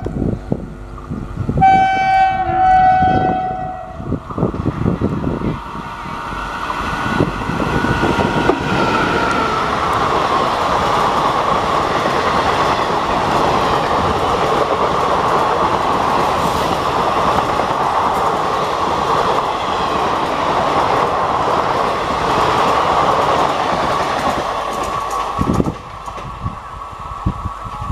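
WAP4 electric locomotive hauling an express passenger train, sounding two short horn blasts and then passing at high speed: wheels clattering over rail joints and coaches rushing by in a steady loud wash of noise. The noise drops away suddenly about two seconds before the end as the last coach goes past.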